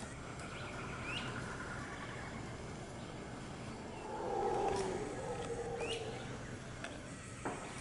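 Mantled howler monkey howling: one rough call swells about four seconds in and fades after a second or so, with a bird chirping twice.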